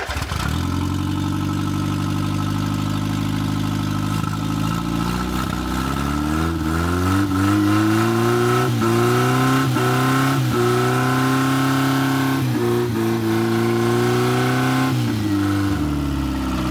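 Old carburetted Ford petrol engine running, revved by hand at the carburettor linkage. It holds a low idle for the first few seconds, rises in pitch about six seconds in, is blipped up and down several times, then drops back near the end. It struggles at low throttle but runs at higher revs, which the men take for an ignition fault in the plugs or points.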